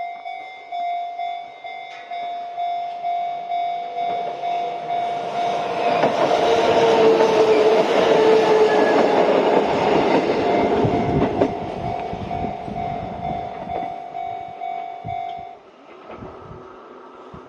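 Japanese level-crossing warning bell ringing in a steady, fast repeat while a Kintetsu Yoshino Line train passes. The train's running noise swells to its loudest midway, with a lower tone sliding down in pitch as it goes by and wheels clacking over rail joints, then fades. The bell stops about two seconds before the end.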